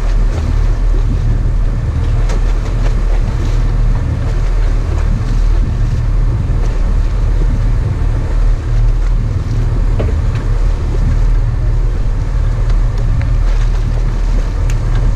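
Sport-fishing boat's engine running steadily with a low rumble, with wind noise on the microphone.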